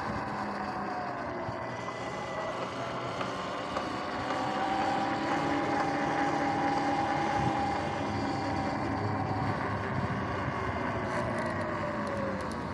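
Electric dirt bike's motor whining while riding, the whine gliding up and down in pitch with speed over tyre and wind noise; the pitch falls near the end as the bike slows.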